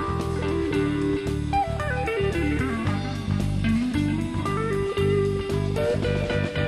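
Country band playing an instrumental break with a steady beat. An electric lead guitar runs down the neck and then climbs back up over the bass.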